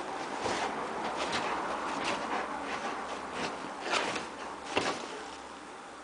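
Rottweiler pawing and digging at a quilt on a bed: steady fabric rustling with a few sharper scratches.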